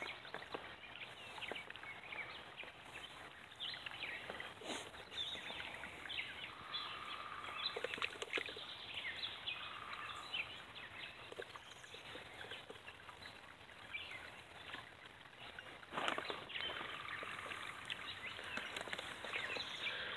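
Faint outdoor ambience with scattered small bird chirps and a few short calls, and two soft knocks, one about a quarter of the way in and one about three-quarters through.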